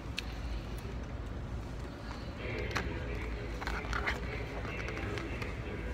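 Background room noise: a steady low hum, with faint voices in the background from about two seconds in and a few light clicks.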